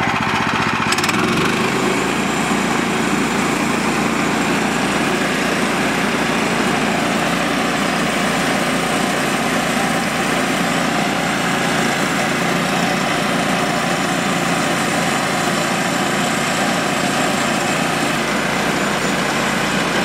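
Woodland Mills band sawmill's gas engine running steadily under load as the band blade saws lengthwise through a log, with a shift in its low hum about a second in.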